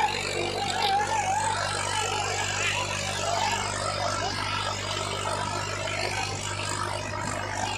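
Swaraj 855 FE tractor's three-cylinder diesel engine running steadily under load as it hauls a train of loaded trolleys, with men shouting close by, loudest in the first couple of seconds.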